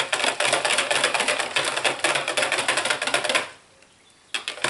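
Metal wire whisk rattling rapidly against the sides of a plastic pitcher as lye solution is whisked to dissolve tussah silk. The rattling stops for about a second near the end, then starts again.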